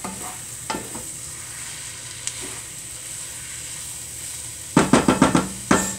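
Vegetables in a pot sizzling steadily as they are stirred with a spoon. Near the end the spoon is rapped on the pot's rim several times in quick succession, a ding-ding-ding.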